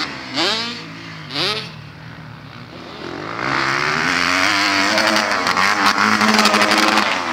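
Motocross dirt bike engines. Two quick throttle revs rise and fall in the first second and a half. From about three seconds in, a louder bike holds steady high revs until near the end.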